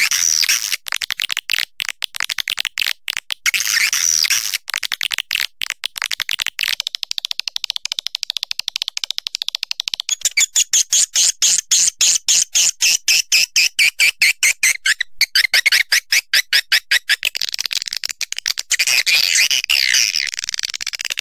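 Swiftlet call recording: fast trains of dry clicks with bursts of high, buzzy twittering over them, the twittering densest through the middle and again near the end.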